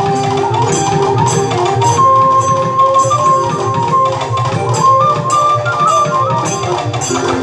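Instrumental interlude of live Indian music: a lead melody instrument plays long held, gliding notes over a steady rhythm of hand percussion.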